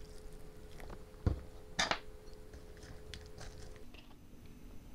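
Small sounds of a breakfast being handled at the table: a dull knock about a second in, a brief scrape just after, and a few light clicks, over a faint steady hum.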